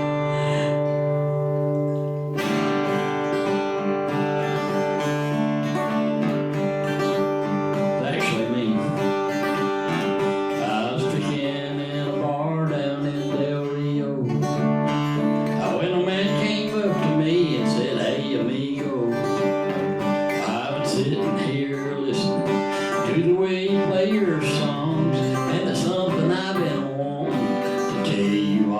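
Solo acoustic guitar playing an instrumental passage without singing: a chord rings for about two seconds, then a long run of picked notes.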